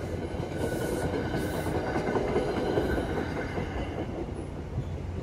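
NJ Transit commuter train's passenger coaches rolling past over a grade crossing, a steady rumble with wheels clacking over the rail joints. The sound eases off after about four seconds as the last car clears the crossing.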